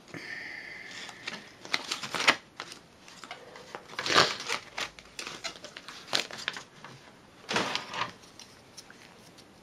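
Hard plastic packaging tray and cardboard insert being handled while a webcam is worked free: irregular clicks, knocks and crackling rustles. A short squeak at the start, with the loudest clatters about two, four and seven and a half seconds in.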